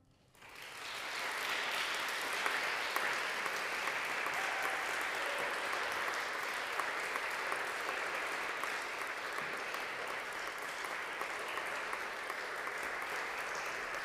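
An audience breaks into applause about half a second in and keeps clapping steadily.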